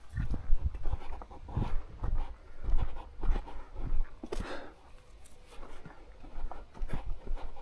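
A hiker's footsteps on a trail: irregular thuds with brief crunches and rustles underfoot.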